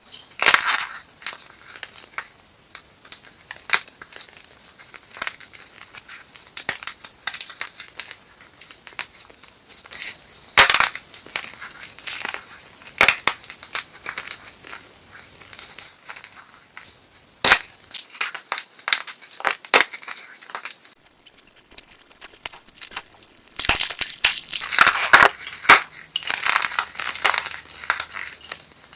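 Hard blocks of chalk being crushed and crumbled: a steady run of dry crunches and crackles, with sharp louder snaps every few seconds and a dense spell of crunching near the end.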